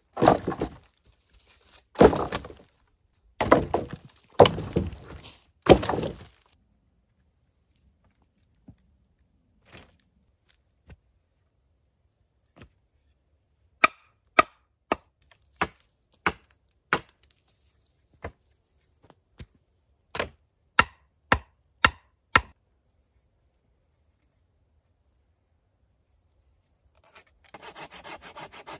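Wood being worked with hand tools: about five long sawing strokes at first, then a string of sharp separate knocks on wood, then fast rasping strokes starting near the end.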